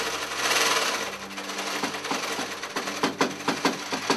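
A sewing machine runs fast through fabric with a steady whir. From about two seconds in it gives way to quick, sharp, ringing taps, about five a second, from a small hammer striking work held on a bench.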